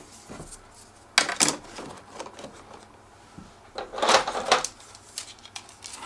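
Plastic quick-disconnect prop guards being handled and pushed against the foam of a hard case: a sharp clack about a second in, then a longer clattering scrape around four seconds in.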